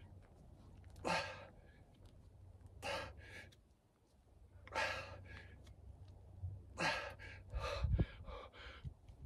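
A man breathing hard from exertion during double kettlebell overhead presses: short gasping breaths about every two seconds, coming faster near the end. A low thud near the end.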